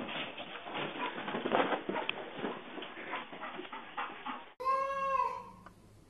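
Dense scratchy noise, then, after an abrupt change about four and a half seconds in, a single drawn-out animal call lasting under a second that dips slightly in pitch at its end.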